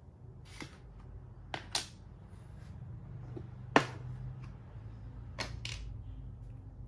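Plastic makruk (Thai chess) pieces clicking against the board and each other as they are picked up and set down during a move and a capture: about six short, sharp clacks, the loudest about four seconds in.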